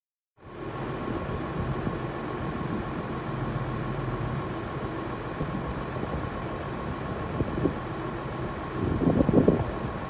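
Diesel tractor engine running steadily, briefly louder about nine seconds in.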